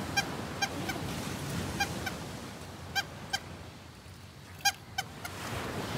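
A pandesal vendor's rubber bulb horn honking in short, high honks at irregular intervals, the call that announces fresh bread for sale. Surf washes softly underneath.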